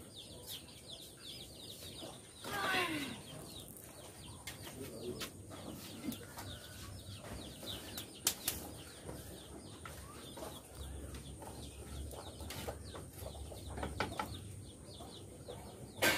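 A hen and her chicks: the chicks cheep over and over in small high falling chirps, and the hen gives one louder falling call about two and a half seconds in. A single sharp knock comes about eight seconds in.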